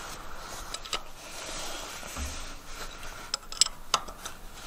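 Steel wrench working the bolts of a tractor's hydraulic control valve as they are snugged down: light metal scraping and rubbing, then a few sharp metal clinks a little after three seconds in.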